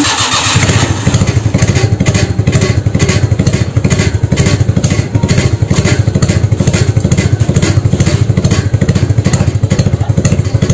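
Car engine running steadily at idle through a homemade stainless-steel pipe exhaust, with a fast, even pulsing exhaust note from the tailpipe.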